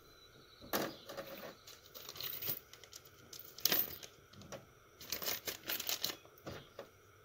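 Hands handling small parts while a new crush washer is fitted onto a new PCV valve: intermittent crinkling rustles and light clicks, coming in irregular bursts.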